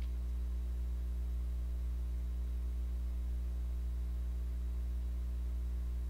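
Steady electrical mains hum in the recording chain: a constant low drone with a ladder of fainter overtones above it, over faint hiss.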